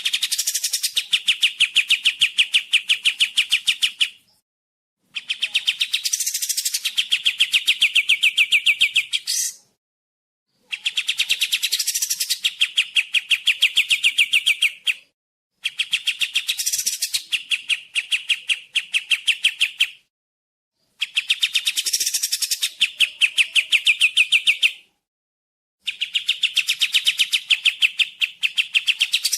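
Kapas tembak song: bouts of about four to five seconds, each a fast, even run of high repeated chirping notes, separated by gaps of about a second.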